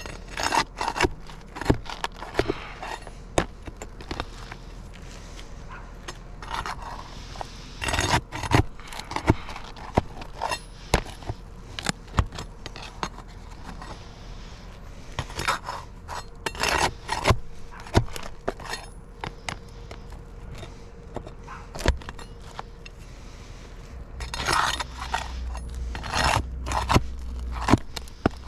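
Steel flat bar scraping and clicking against old three-tab asphalt shingles and roofing nails as the shingles are pried up and the nails worked loose, in irregular runs of sharp scrapes and taps.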